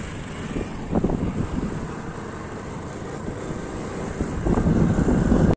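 Wind rushing over the microphone of a moving motorcycle, with the bike's engine running underneath. It grows louder about four and a half seconds in.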